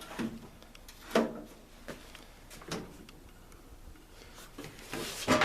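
A series of separate knocks and clunks, about six of them, as of something being handled; the loudest come about a second in and near the end.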